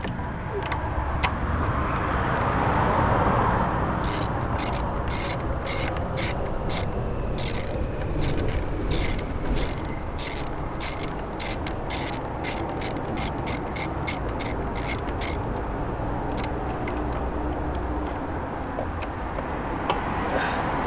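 Socket ratchet with a T30 Torx bit clicking in quick runs as bolts are worked loose, several clicks a second through the middle of the stretch.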